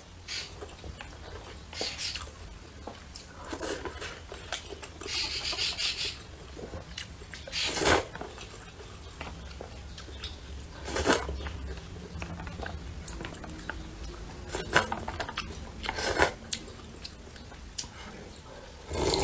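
A person slurping glass noodles and sipping spicy soup from a plastic bowl: short, sharp slurps every few seconds, the loudest about eight and eleven seconds in, with light clicks of chopsticks against the bowl between them.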